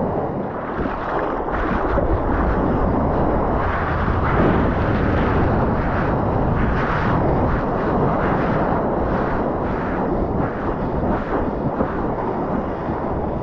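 Steady rushing noise of wind on a GoPro's microphone and sea water lapping around the camera at the surface, with small splashes now and then.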